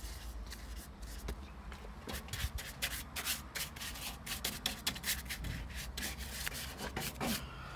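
Bristle paintbrush scrubbing liquid rust converter into a rusty metal tank: a run of quick, uneven, scratchy brush strokes, several a second.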